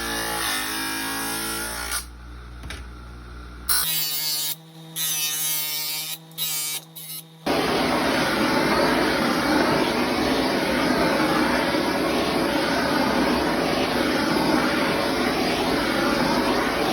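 A handheld power tool running steadily from a little under halfway in, after a first stretch of steady tones that start and stop several times.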